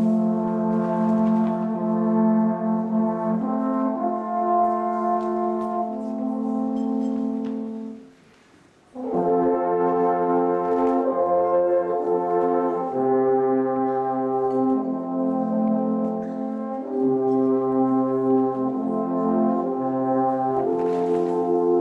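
An alphorn ensemble plays long held notes in harmony, with a lower horn moving between notes beneath the others. The playing breaks off for about a second roughly eight seconds in, then starts again.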